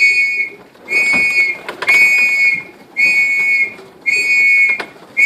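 A whistle blown in six short, steady-pitched blasts, about one a second: the call used to bring young racing pigeons in to the loft.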